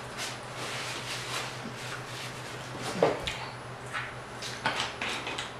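Crisp crackling of fried croaker fish being pulled apart by hand: a run of short, sharp crunchy snaps, the loudest about three seconds in, over a steady low hum.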